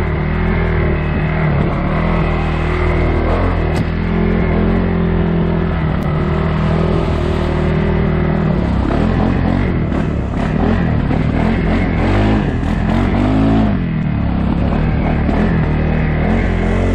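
2022 CFMoto CForce 600 ATV engine running under way on a trail, holding a steady pitch at first. From about nine seconds in it revs up and down for several seconds with the throttle, then settles back to a steady pitch.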